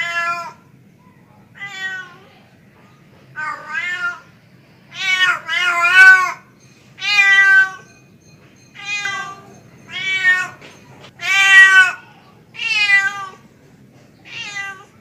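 Tomcat's mating calls: about a dozen drawn-out meows, one every second or so, with short pauses between.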